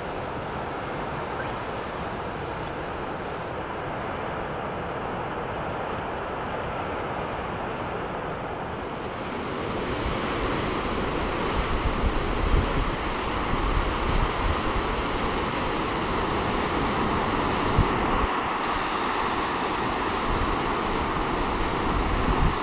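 Ocean surf washing over rocks, a steady rushing noise. About ten seconds in it grows louder, with wind gusting against the microphone.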